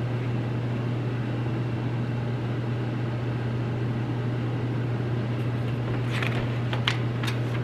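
Steady low electrical or ventilation-type room hum, with a few faint clicks and rustles near the end.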